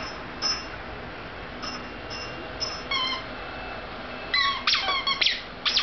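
Toddler's squeaky shoes chirping with each step, a short high squeak about every half second, coming louder and quicker near the end.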